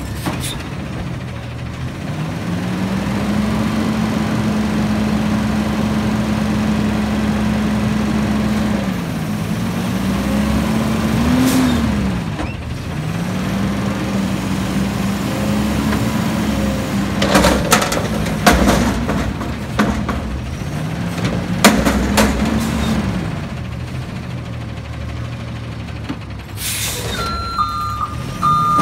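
Front-loading garbage truck with a McNeilus body, its diesel engine revving up and holding in several stretches to drive the hydraulic arms as a commercial dumpster is lifted over the cab and emptied. Sharp metal bangs come in a cluster about two-thirds of the way through as the bin is shaken out at the top, and a reversing alarm starts beeping near the end.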